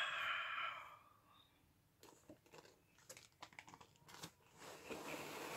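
Clear zip-lock plastic bags crinkling and rustling in a cardboard box as a hand grabs and lifts one out: a run of short, irregular crackles from about two seconds in. A short burst of hiss comes first, in the opening second.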